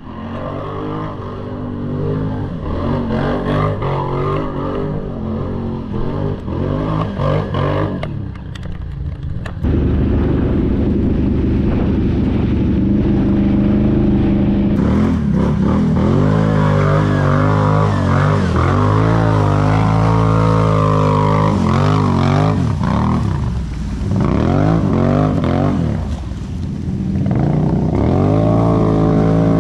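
ATV engine running and revving under load, its pitch rising and falling over and over as the throttle is worked. It gets abruptly louder about ten seconds in, and dips briefly twice near the end.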